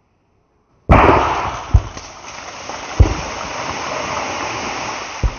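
A tin packed with many small Diwali firecrackers explodes while buried in soil: a sudden loud bang about a second in, then a long rush of noise as dirt rains down, broken by three more separate bangs.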